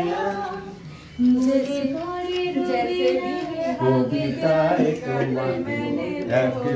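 Voices singing a song unaccompanied, antakshari-style, with a louder voice taking over about a second in and a lower voice joining about four seconds in.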